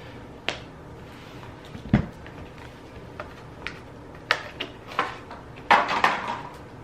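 Handling noises of an UGG slip-on being put on: scattered light taps and clicks, one dull thump about two seconds in, and a burst of rustling and scraping near the end.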